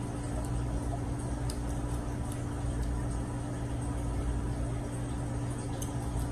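Steady low background hum at an even level, with a few faint, short ticks.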